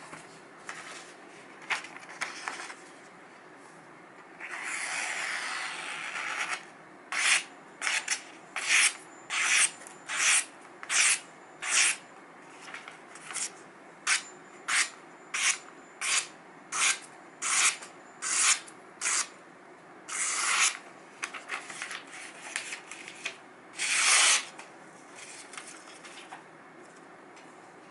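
Freshly sharpened kitchen knife slicing through a glossy catalogue page again and again, each cut a short papery hiss: a paper test of the edge's sharpness. Through the middle the cuts come evenly, about one and a half a second, with a few longer slices later.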